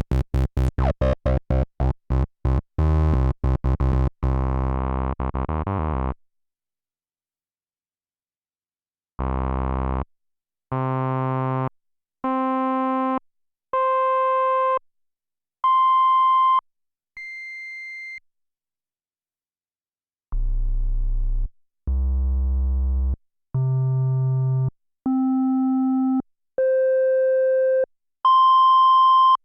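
Korg Monologue analog monophonic synthesizer playing dry: a fast sequence of short notes for about six seconds, then after a pause two runs of single held notes, each about a second long, stepping upward in pitch and sounding thinner and purer as they climb.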